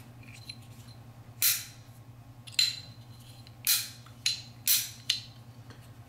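Hinged metal lid of a chrome Zippo-style butane lighter being flipped open and snapped shut, about six sharp metallic clicks spread over a few seconds.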